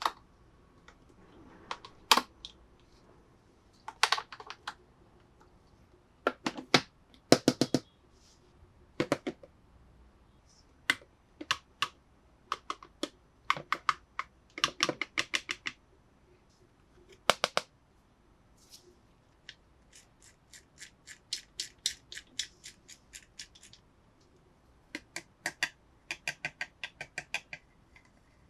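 Hard plastic toy pieces being handled, clicking and tapping in scattered short clusters, with a couple of runs of rapid, evenly spaced ticks about two-thirds of the way through.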